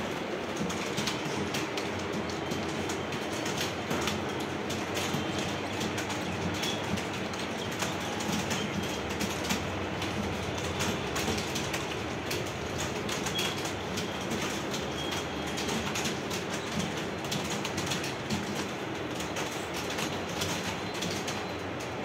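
Computer keyboards being typed on fast by several typists at once: a dense, steady clatter of key clicks.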